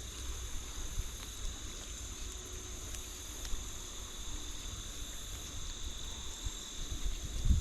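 Insects chirring steadily in two high, even tones, over a low rumble.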